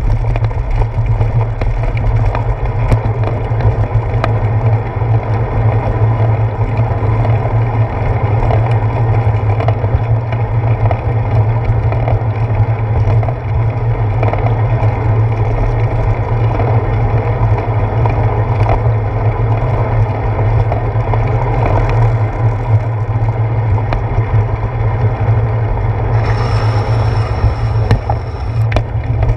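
Bicycle riding noise picked up by a handlebar-mounted GoPro Hero 4: a steady low rumble from the tyres on wet pavement and the camera mount vibrating. About 26 seconds in, a brighter hiss joins for around three seconds.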